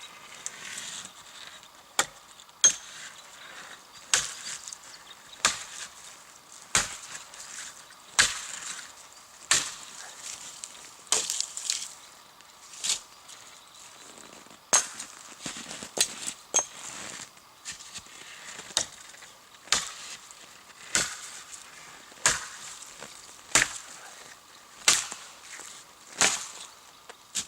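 Axe chopping wood for a campfire, one sharp strike about every second and a half, kept up steadily.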